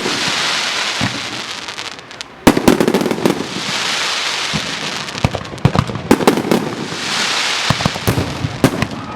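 Aerial fireworks going off in a rapid series of sharp bangs, each burst followed by a long high hiss as it spreads. After a brief lull, the loudest bang comes about two and a half seconds in.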